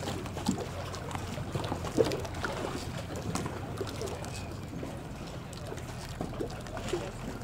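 Small waves of lake water lapping and splashing in irregular little slaps, the sharpest about two seconds in, over a steady low hum.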